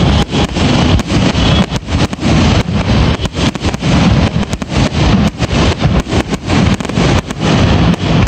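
Aerial firework shells bursting in a rapid, unbroken finale barrage, several bangs a second. The sound is so loud that the recording is overloaded and distorted.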